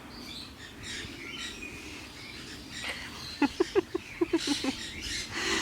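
Birds chirping in the background, with a quick run of about eight short pitched notes a little past halfway.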